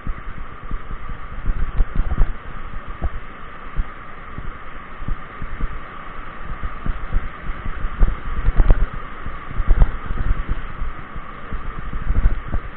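Mountain bike rolling fast down a rough gravel track: irregular knocks and thuds from bumps jarring the camera mount over a steady rolling hiss. The jolts come heaviest a little past the middle and again near the end.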